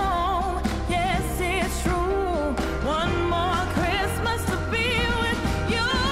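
Pop song with a singing voice over a steady bass line.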